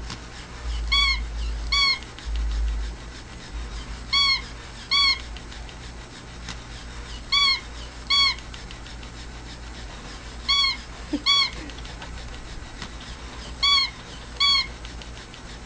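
Electronic plush toy cat giving short mews in pairs, about a second apart, the pair repeating every three seconds or so in a steady mechanical loop.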